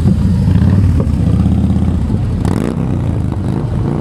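Several motorcycles riding past one after another at low speed, their engines running with a dense low pulsing.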